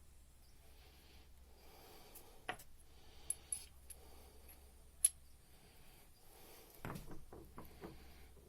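Faint clicks and light taps of small metal parts being handled while a common rail diesel injector is reassembled, with a sharp click about five seconds in and a short run of soft knocks near the end.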